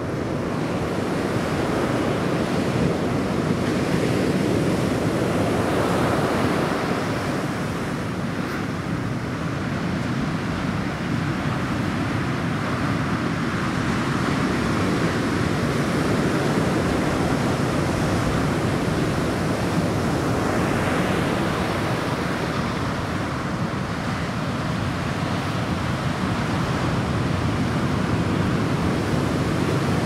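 Ocean surf on a beach: waves breaking and washing in a steady rushing noise that swells and eases, with a stronger surge of wash about twenty seconds in.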